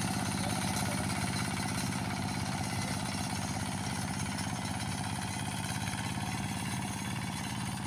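Kubota kuliglig, a two-wheel hand tractor with a single-cylinder diesel engine, running steadily at an even speed.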